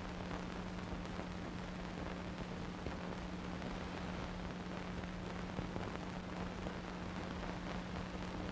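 Steady hiss with a constant low hum and no other sound: the noise floor of a silent film transfer.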